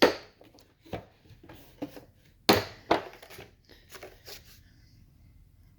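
An Allen key set and its plastic packaging being handled: a string of sharp clicks and knocks with some crinkling. The strongest knocks come at the start and about two and a half seconds in.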